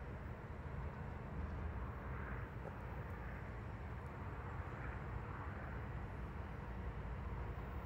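Wind buffeting the microphone in a steady low rumble, with the low drone of a diesel locomotive approaching far off.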